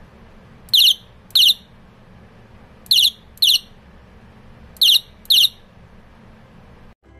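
Electronic horn of a rechargeable bicycle light-and-horn unit, set off from its cabled remote push-button: three double beeps, each beep a short high-pitched chirp that drops slightly in pitch at its end.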